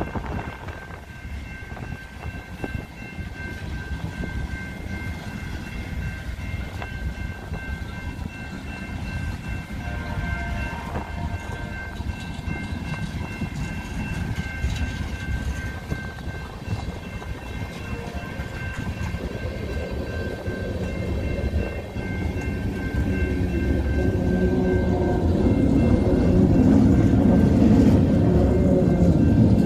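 Freight train of tank cars and boxcars rolling through a grade crossing: steel wheels rumbling and clacking over the rails, with a few steady high tones over the first two-thirds. A louder, lower rumble builds over the last several seconds.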